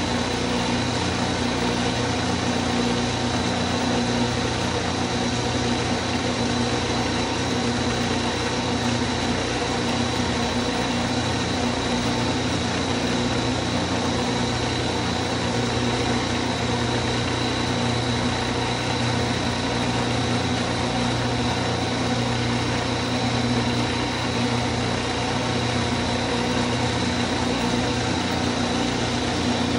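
Drill press running steadily while it drills into a wax crayon: an even motor hum with a thin high whine above it.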